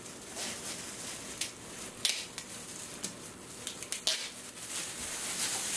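Clear plastic packaging bag crinkling and rustling as it is pulled open by hand, with a few sharper crackles about two and four seconds in.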